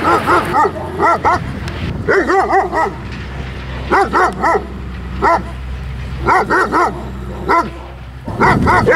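A German Shepherd barking aggressively at another dog while lunging on its leash, in bursts of two to five sharp barks about every second. This is the dog-directed aggression it is being trained out of.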